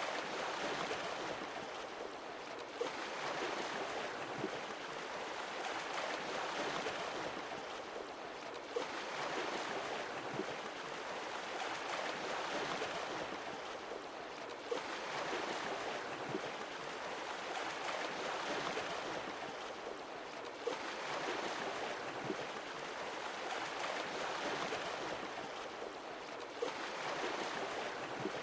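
Sea waves washing onto the shore, a new wave about every six seconds, each one arriving suddenly and then slowly easing off.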